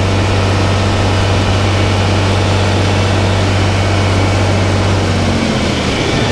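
Tractor engine running steadily while it drives the grain auger to clear it out. About five seconds in, the engine note drops as the engine is throttled down.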